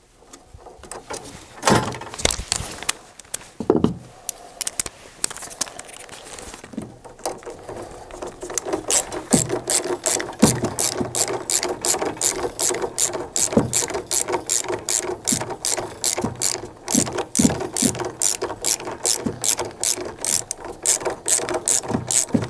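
Ratchet wrench clicking as it runs down the nut holding the level switch harness's P-clamp, a steady run of about three clicks a second that sets in about a third of the way through. A few separate knocks of tool on metal come in the first few seconds.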